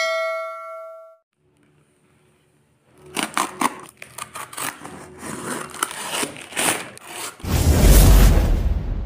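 A bell-like ding rings and fades over the first second. From about three seconds in comes a run of sharp crackling and scratching as the packing tape and plastic wrap of a cardboard parcel are slit with a blade. Near the end a loud swelling whoosh with a deep rumble takes over.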